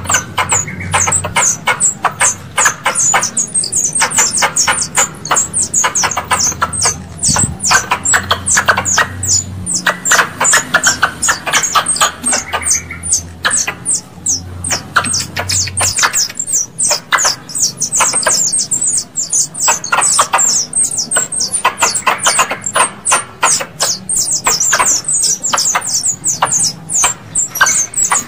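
Squirrel lure call: a rapid, unbroken series of short, high-pitched squirrel chirps, repeating several times a second. A low hum runs beneath the chirps and stops about halfway through.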